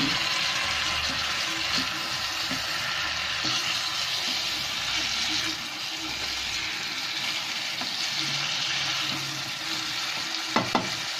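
Chopped onions and tomatoes sizzling steadily in hot oil in a frying pan while being stirred with a wooden spatula.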